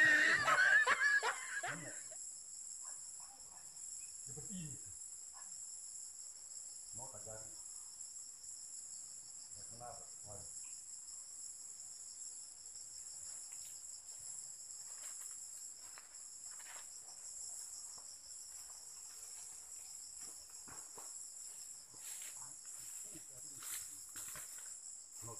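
Steady high-pitched chorus of insects such as crickets or cicadas. A loud voice-like call sounds in the first couple of seconds, and faint short calls follow a few times in the distance.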